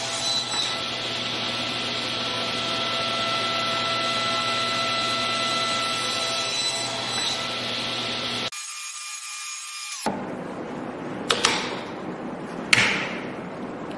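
Table saw running steadily while a stool leg is passed over the blade, cutting a row of kerfs to waste out a half-lap joint. It cuts off about eight and a half seconds in, and near the end come two sharp cracks of wood, the second the louder, as the thin kerfed waste is broken out.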